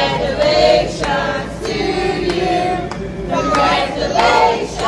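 A group of people singing together, with long held notes that glide up and down.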